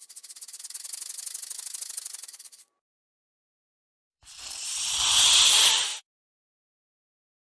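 Snake sound effects: a rapid, evenly pulsed rattling buzz for about two and a half seconds, then, after a pause, a hiss that swells louder and stops abruptly.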